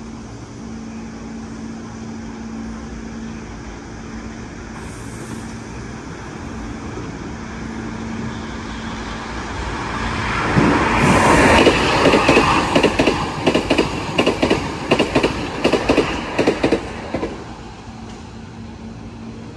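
A low steady hum, then a Hankyu 8000 series electric train pulls away and passes close by, starting about halfway through. Its wheels clack over the rail joints in a quick, regular rhythm for several seconds before the noise eases off near the end.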